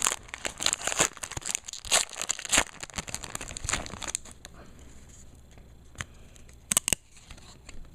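A foil trading-card pack wrapper torn open and crinkled: a dense crackle for about the first four seconds, then quieter handling with a couple of sharp clicks near the end.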